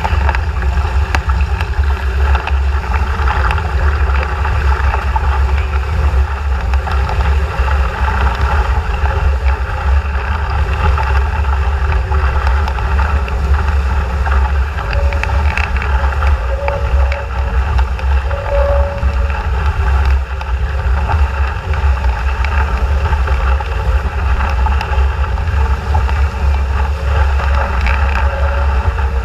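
Strong wind buffeting the action camera's microphone as a steady, loud low rumble, with water rushing and spray hissing along the hull of an RS400 sailing dinghy sailing fast.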